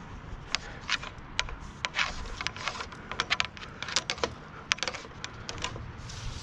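Irregular sharp clicks and light taps from a fiber optic drop cable and its clamp hardware being handled, as the snagged cable is worked free.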